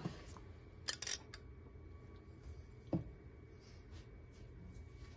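A few light clicks about a second in and a single knock about three seconds in, from kitchen items being handled as enchilada sauce goes onto the pizza crust; otherwise quiet room tone.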